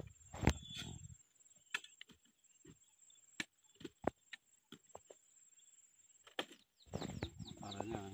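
Machete chopping cassava: sharp, irregular chops a second or so apart as the tubers and stems are cut. A voice-like pitched sound comes in near the end.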